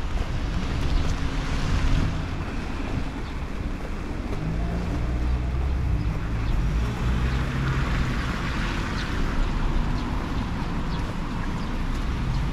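Rainy street ambience: a steady hiss of rain and wet road noise, with the low hum of a vehicle engine a few seconds in.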